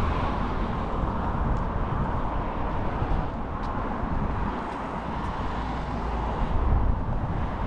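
City street ambience: traffic noise with wind rumbling on the microphone, steady throughout with a few faint ticks.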